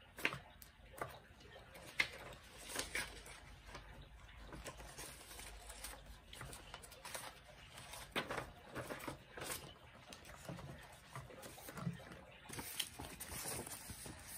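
Old newsprint pages rustling and crackling as they are leafed through by hand, a string of irregular soft paper flicks.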